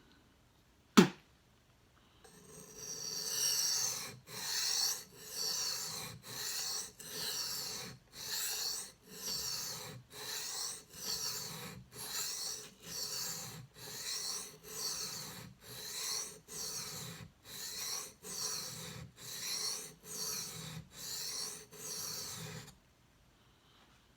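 A knife blade drawn again and again across a wet King whetstone: a steady run of about twenty even grinding strokes, roughly one a second, while the edge is sharpened. A single sharp click about a second in comes before the strokes begin.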